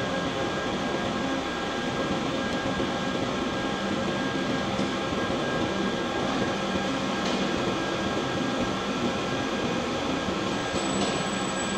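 Steady heavy-industrial machinery noise in a large steel-fabrication hall: a continuous din with several steady whining tones over it.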